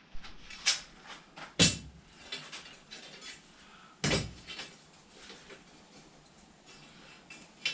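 Forged steel tripod legs clinking and knocking against each other as they are handled, with heavier knocks about a second and a half in and about four seconds in, and lighter clicks between.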